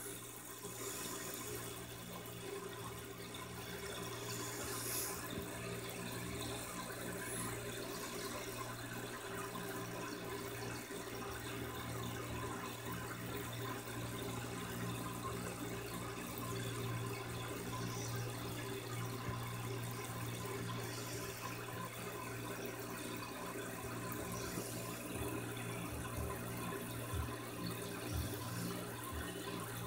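Aquarium filter running: a steady wash of moving water with a low, even hum underneath.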